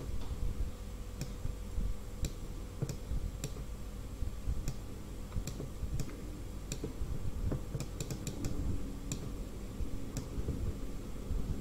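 Light, sharp clicks at irregular intervals, about one or two a second with a quick cluster near the end, over a low steady rumble.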